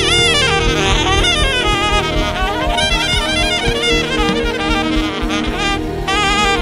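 Saxophone playing a melody with wavering, bending notes over sustained chords and a steady beat.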